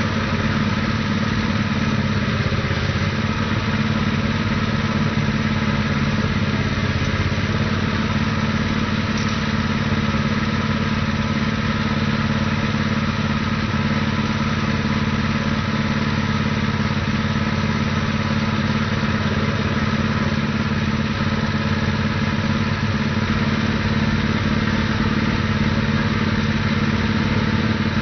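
Predator 212cc single-cylinder petrol engine running steadily, powering a cable tool percussion drill rig while it drills.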